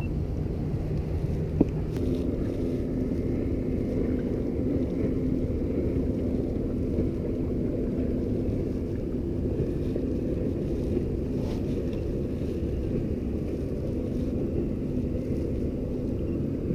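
A boat motor running steadily with low rumbling water and wind noise, and a single sharp click about a second and a half in.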